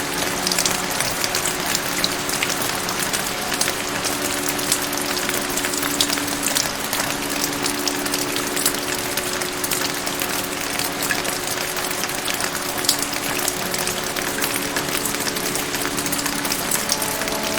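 Steady heavy rain: a dense, even hiss with many small drop ticks. Soft, sustained low musical tones hold underneath.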